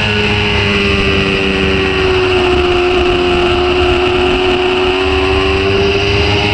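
Sport motorcycle's engine running at high revs in third gear, its pitch held nearly steady through a long corner, dipping slightly midway and rising a little near the end, with wind rush over it.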